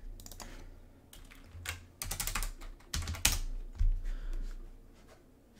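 Typing on a computer keyboard: several quick runs of key clicks with short pauses between them, over a low steady hum.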